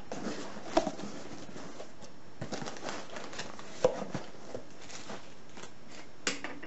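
A cardboard box being handled and unpacked, with newspaper packing rustling and crinkling, and two sharp knocks, about a second in and about four seconds in.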